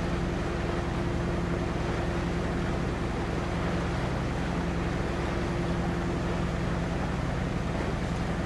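A boat's engine running steadily, a constant low drone with a steady hiss of noise over it.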